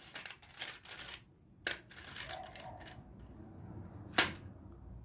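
Hands handling stiff synthetic bag fabric, with light rustling and a few sharp clicks, the loudest about four seconds in.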